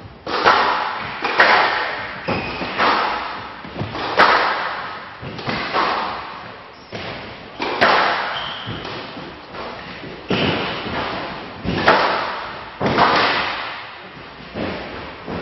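A squash rally on a glass court: the ball cracks off the rackets and smacks the front and glass walls, a sharp hit roughly every second, each ringing briefly in the hall.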